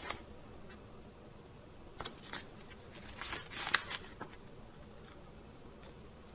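Pages of a glossy paper booklet being turned and handled: a few short rustles and one sharp paper click, clustered between about two and four seconds in, over quiet room tone.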